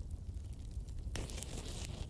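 Wood fire of damp logs burning in a fireplace with a steady low rumble; a little over a second in, a sharp hiss rises and holds for most of a second.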